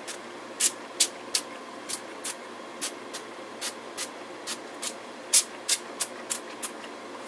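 Pump-spray bottle of I Can't Believe It's Not Butter spray being squirted in many quick, short spritzes, about two or three a second.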